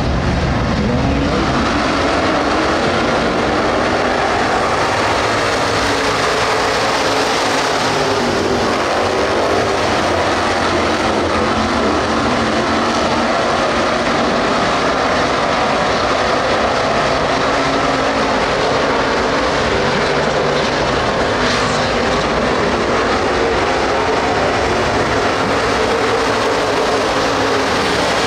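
A field of dirt-track street stock race cars circling the track together, their engines running in a steady, loud mix.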